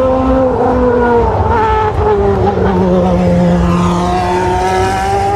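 Racing car engine running at high revs: several engine tones over a low rumble, dropping to a lower note about two seconds in and rising slowly near the end.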